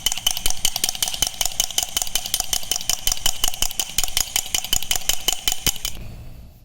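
A metal utensil whisking egg yolk and sugar in a ceramic mug: rapid, even clinks against the mug wall, with the mug ringing, fading out near the end.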